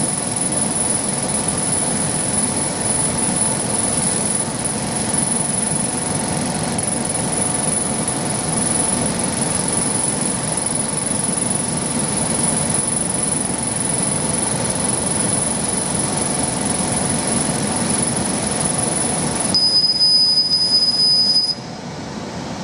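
CO2 galvo laser marking machine running as it perforates paper: a steady rushing machine noise with a thin, high-pitched whine. Near the end the whine gives way to a lower steady tone for about two seconds, and then the noise drops.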